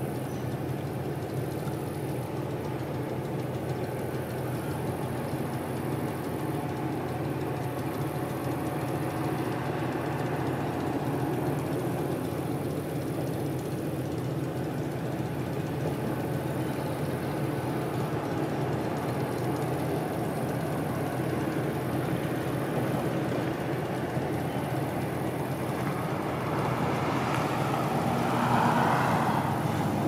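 Steady low drone of ship engines from a tanker and its attending tugboat moving slowly along the canal, swelling briefly near the end.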